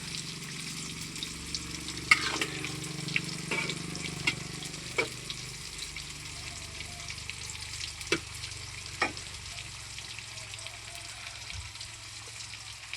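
Pieces of boiled cassava sizzling steadily as they fry in hot oil, with a few sharp clicks and knocks of a utensil in the pan.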